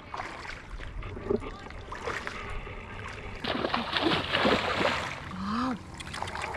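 Water splashing and sloshing in irregular bursts, loudest in a stretch through the middle, followed by a short rising call about five and a half seconds in.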